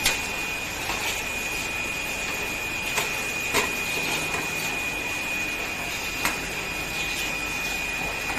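A steady machine hiss with a thin high whine throughout, broken by a few sharp metallic clicks and knocks as a metal plate is worked out from under the conveyor belt of a cookie cutting machine.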